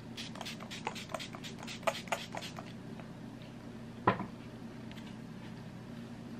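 Makeup setting spray being spritzed from a pump bottle: about ten quick short sprays, about four a second, in the first few seconds. A single sharp knock follows about four seconds in.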